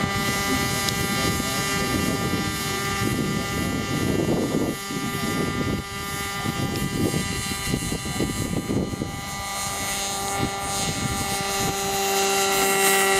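Model airplane engine spinning its propeller at a steady speed while the plane is held on the runway, getting louder near the end as it is released for the takeoff roll.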